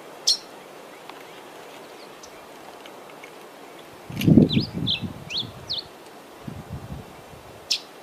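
Tigrillo degollado songbird: a sharp high chirp, then a quick phrase of slurred whistled notes about four seconds in, and another sharp chirp near the end. Under the song, a loud low rumbling noise comes in short bursts, louder than the bird.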